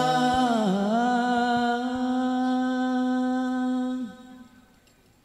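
The closing held note of a sholawat song, sung into microphones by a rebana group: one long note that dips in pitch briefly then holds steady, with a last drum stroke just after the start. The note ends about four seconds in.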